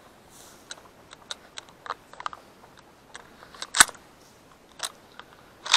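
Footsteps and rustling through tall dry grass, with short clicks and knocks from gear and shotgun handling. The two loudest are sharp clicks, one just under four seconds in and one at the end.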